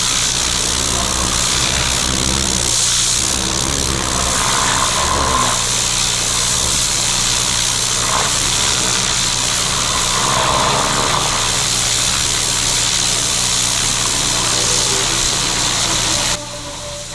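Petrol pressure-washer engine running steadily under load, with the hiss of a high-pressure water jet spraying the roof. It cuts off suddenly near the end.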